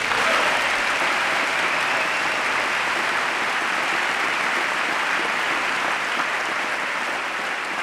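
Sustained applause from a large audience of members of Congress, starting at once and holding steady, then slowly tapering off near the end.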